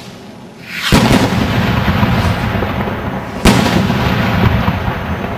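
Fireworks going off: a loud bang about a second in, then a dense wash of noise from the bursts, and a second sharp bang about two and a half seconds later.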